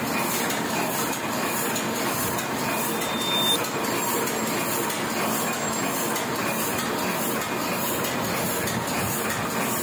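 Small sheet-fed offset printing press running, a steady mechanical clatter with a fast regular beat as it feeds and prints sheets.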